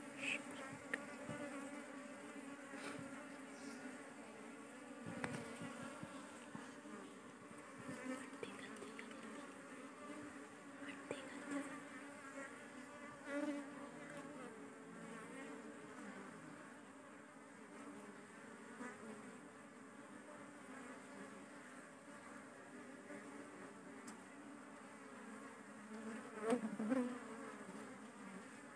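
Honeybees on the comb buzzing as a steady hum of many wings. Near the end one bee buzzes louder close by, its pitch rising and falling.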